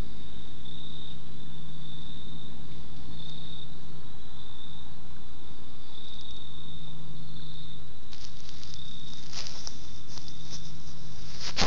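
Insects chirring in a high, steady trill that stops and starts every second or so. From about eight seconds in there are crackling rustles, loudest near the end.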